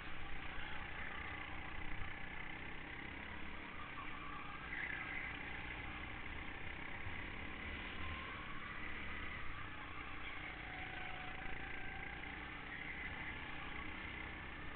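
Go-kart engine heard from an onboard camera on the kart, running continuously, its note rising and falling as the kart accelerates and slows through the corners.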